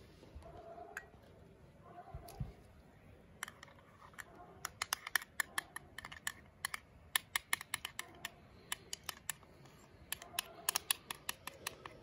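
Metal spoon clicking against the sides of a small porcelain bowl as a sauce is stirred, a quick, irregular run of sharp clicks that starts about three and a half seconds in.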